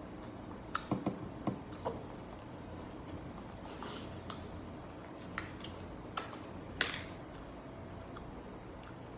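Wooden chopsticks clicking and scraping in a paper instant-food cup as food is stirred and picked up. A cluster of small clicks comes about a second in, and a few sharper taps follow later.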